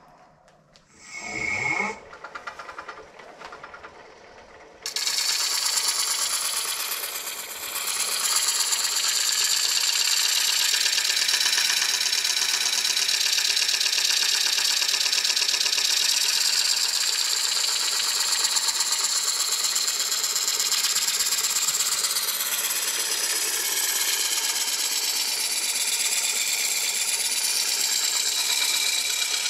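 Wood lathe spinning up with a short rising whine about a second in, then from about five seconds the steady, loud hiss of a turning tool cutting into a large spinning blue pine bowl blank, with a brief dip around seven seconds.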